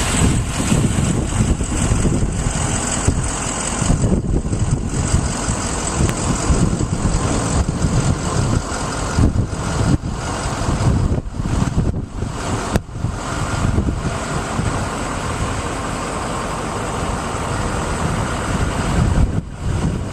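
Steady, loud rumble of a motor vehicle with a continuous rushing noise and irregular low buffeting.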